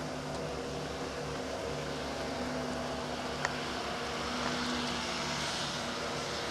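Blizzard wind hissing, swelling a few seconds in, over a steady low mechanical hum, with one sharp click partway through.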